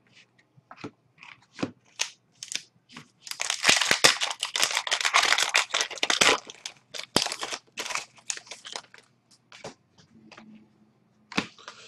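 A 2013-14 Upper Deck SPx hockey card pack being torn open by hand, its wrapper crinkling in a dense run of crackles in the middle, with scattered clicks and rustles of the cards being handled before and after.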